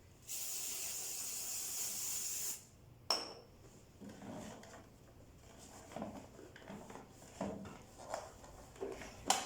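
Aerosol furniture-polish cleaner spraying in a steady hiss for about two seconds, then a sharp click, followed by soft rubbing and light knocks of a towel wiping the vacuum cleaner's plastic body.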